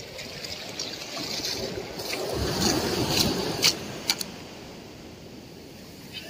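Shallow surf washing up over a sandy beach: the wash swells about two seconds in and then eases off, with a few short sharp clicks near the middle.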